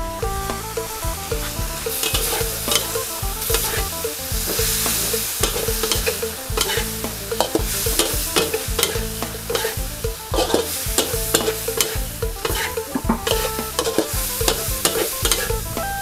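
A metal spatula scraping and clacking against a steel wok as eel and curry paste are stir-fried, with a steady sizzle under many sharp, irregular clicks of the spatula.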